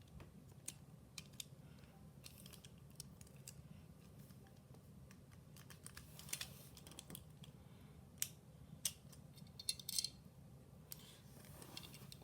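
Faint, scattered clicks and taps of small plastic Beyblade parts being handled and pressed together during assembly, over a low steady hum.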